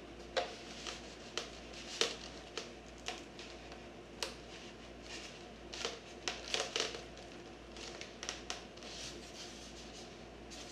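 Scattered clicks, taps and light scraping of hands working inside a foam RC jet fuselage, pushing up on the electric ducted-fan unit to free it; the fan unit is not coming loose easily. The taps come in a quick cluster a little past the middle.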